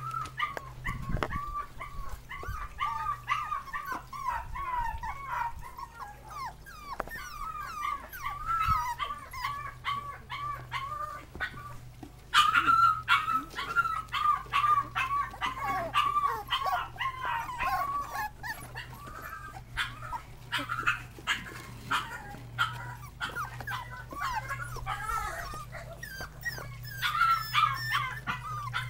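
Shorty Jack Russell Terrier puppies, seven weeks old, whining and whimpering in high, wavering cries almost without a break, louder from about twelve seconds in and again near the end. Small clicks are scattered through it.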